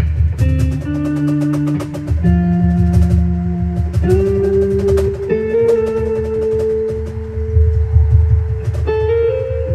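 Live instrumental music: held notes stepping from pitch to pitch every second or two over a low, pulsing beat with sharp percussive clicks.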